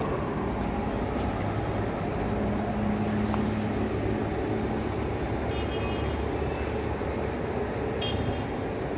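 Steady outdoor background noise with a low rumble, like distant road traffic, and a few faint high chirps about six seconds in and near the end.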